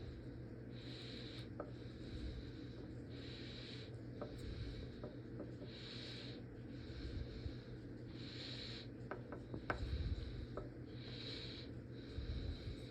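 Faint rubbing and handling of the ratchet head's internals as grease is worked in, with a few small metal clicks about two-thirds of the way through. A soft hiss comes and goes every two to three seconds.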